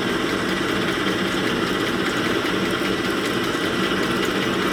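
Honing machine running with a steady, unchanging hum while piston wrist-pin bores are honed to fit.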